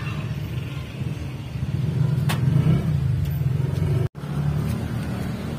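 Steady low mechanical rumble of a running motor, a little louder in the middle, cut off for an instant about four seconds in, then resuming.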